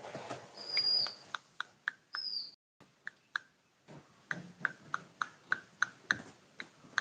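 Bird chirping: a few short, high, slightly falling peeps, then a fast run of short chirps, about three a second, from about four seconds in.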